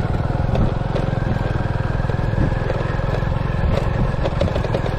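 A small engine running steadily at an even speed, with no revving.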